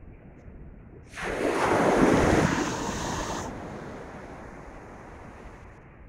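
Atlantic surf: a wave breaking and washing up the beach, a rush of noise that swells suddenly about a second in and fades away over the next few seconds, over a steady bed of wind noise.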